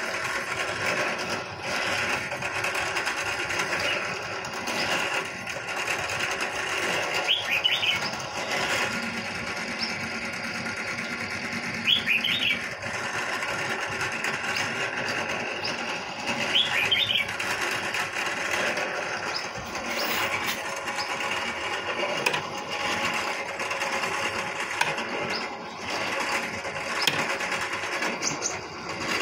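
A steady, dense buzzing drone runs throughout. Short bursts of bird chirps come three times over it, a few seconds apart, through the first half and the middle.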